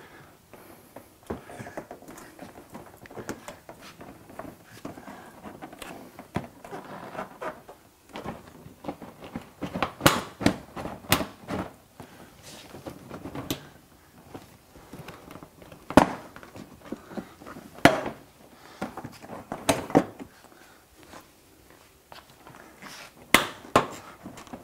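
Sharp plastic clicks and knocks a few seconds apart, with handling noise in between, as the front bumper cover of a Honda S2000 is pulled and flexed by hand and its clips and tabs pop loose.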